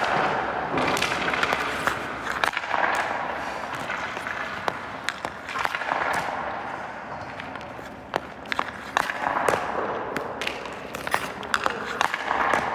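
Hockey skate blades scraping and carving on ice in repeated swells every couple of seconds, with many sharp clacks of stick and pucks striking.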